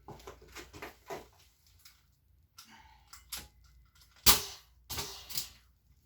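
Clatter of handling the ratchet strap and tools around a mower wheel: a run of small clicks, then a few sharp knocks, the loudest about four seconds in.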